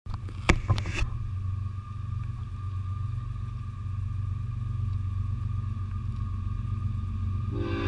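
Low, steady rumble of an approaching diesel freight train, with a few sharp knocks in the first second. Near the end, a locomotive air horn starts sounding: a chord of several steady tones.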